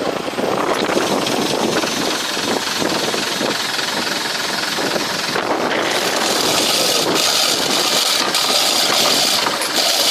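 A boat's engine running loudly, a dense, rough clatter with hiss over it.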